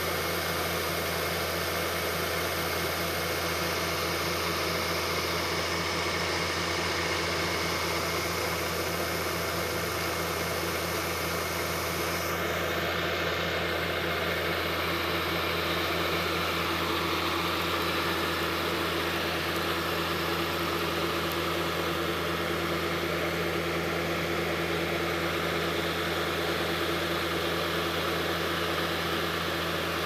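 Crawler bulldozer's diesel engine idling steadily close by, with no revving.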